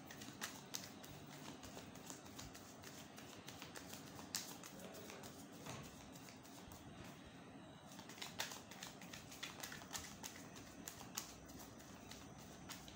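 Faint overhand shuffling of a tarot deck by hand: a run of soft, irregular clicks and taps as the cards slide and knock against each other.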